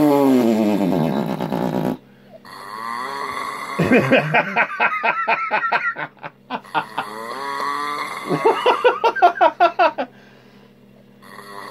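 A man snoring loudly in long, drawn-out breaths, three of them, the last two ending in a fast rattling flutter that sounds like a chainsaw. A short lull comes near the end.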